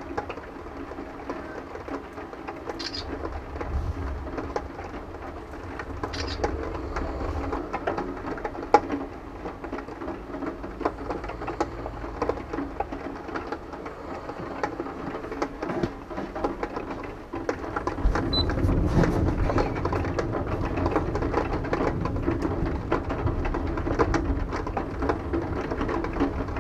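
Rain falling with pattering drops, under low rumbles of thunder: a short one a few seconds in, and a longer, louder one starting about two-thirds of the way through.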